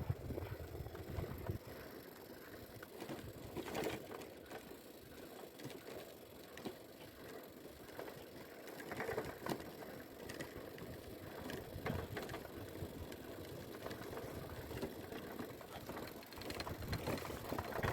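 Bicycle rattling and clicking while riding over a rough dirt track, with light wind on the microphone.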